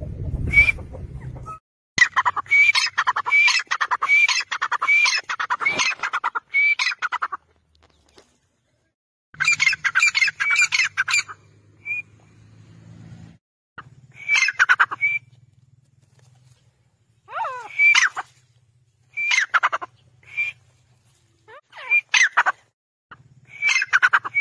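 Grey francolin (desi teetar) calling: a long run of loud, rapid repeated notes lasting about five seconds, then shorter bursts of the call every two to four seconds.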